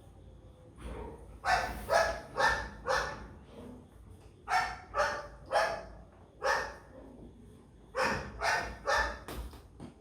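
A dog barking, about a dozen sharp barks in three runs of three or four.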